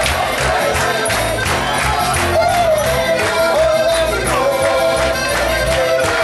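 Live band music with a steady drum beat, bass and a melody line carried over it.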